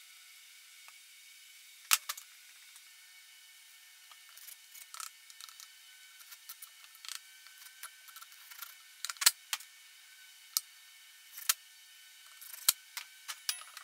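Scattered sharp clicks and light metallic knocks of a cordless drill/driver and steel pin-hinge hardware being handled against a wooden post, with a few louder knocks about two, nine and twelve and a half seconds in. No power tool is heard running.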